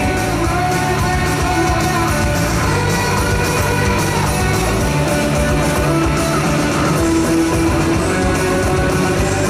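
A live pop-rock band playing an instrumental break with guitar to the fore over bass and drums, no singing.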